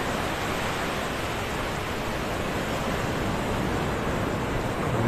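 Ocean surf breaking and washing up a sandy beach: a steady, even rush of surf.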